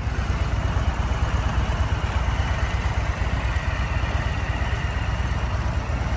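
Harley-Davidson Low Rider S's Milwaukee-Eight 117 V-twin engine idling with a steady low rumble.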